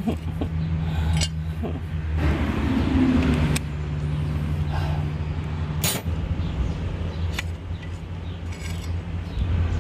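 A few sharp metallic clinks of hand tools and parts being worked on a tractor's front axle, over a steady low engine hum.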